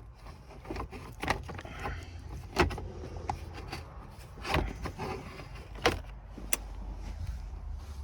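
Plastic steering-column and dash trim being handled: irregular clicks and knocks, the loudest about two and a half, four and a half and six seconds in, over a low steady hum.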